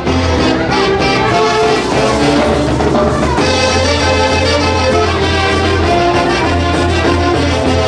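Peruvian folk orchestra playing a Santiago tune live: a brass melody over a steady bass line.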